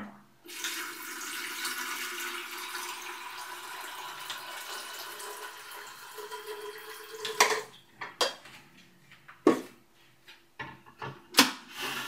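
Water pouring from a plastic filter jug into a glass electric kettle, a steady splashing fill lasting about seven seconds. After it come several sharp knocks and clicks as the jug and kettle are set down.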